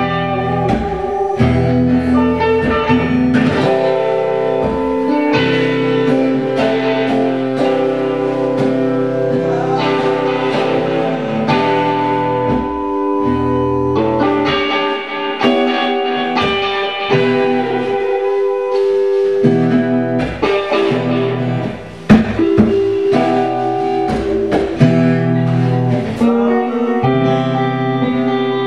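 Live band jamming a slow blues: electric guitar and bass over a drum kit, with keyboard, echoing in a bare concrete garage. It drops out briefly about three-quarters of the way through, then comes back in on a loud hit.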